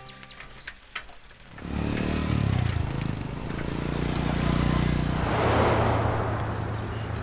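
Road traffic: a motor vehicle's engine sets in less than two seconds in, running low and steady, with a rushing sound that swells about five and a half seconds in as it passes.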